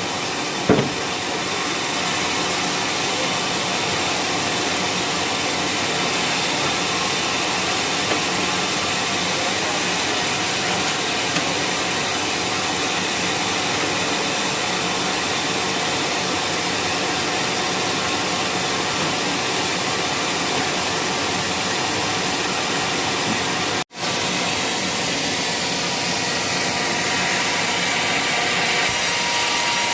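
Homemade sawmill running steadily, a continuous even machine noise from the saw and its motor as waru wood is sawn, with a single knock about a second in and a momentary break about 24 seconds in.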